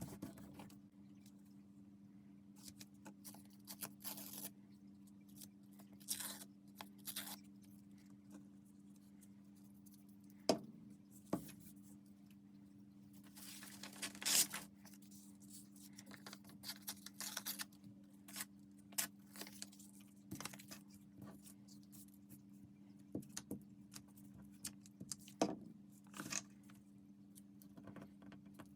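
Paper being handled: scattered rustles, scrapes and light taps, with one longer rustle about halfway through. A steady low hum runs underneath.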